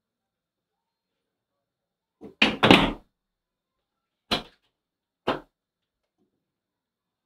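Clunks at a closed steel apartment front door: a loud double clunk about two and a half seconds in, then two single clunks about a second apart.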